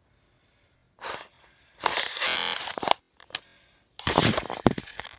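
Phone microphone handling noise: three spells of rustling and scraping as the phone is turned over and brushed against a shirt, with a few clicks between them.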